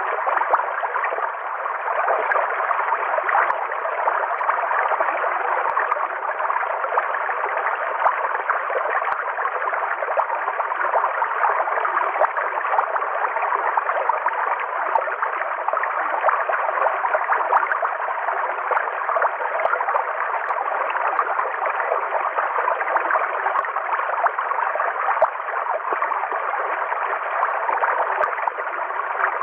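River water flowing in a steady, even rush with a gurgling texture that does not change.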